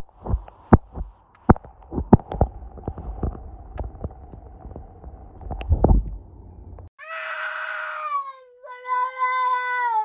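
A run of sharp knocks over a low rumble, then a cat yowling in two long calls that each fall slightly in pitch: a cat protesting at not being let outside.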